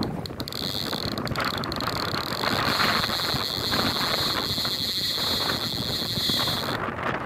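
Strong gusty wind buffeting the microphone, with a steady high-pitched whine over it that cuts off suddenly near the end.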